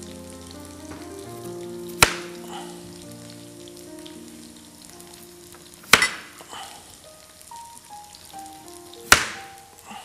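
Chef's knife slicing through a raw taro corm and striking the cutting board three times, about two, six and nine seconds in.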